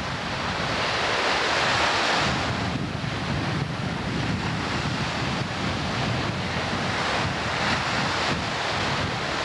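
Lake Superior surf breaking and washing up on a narrow beach, a continuous rushing sound, with wind buffeting the camcorder microphone.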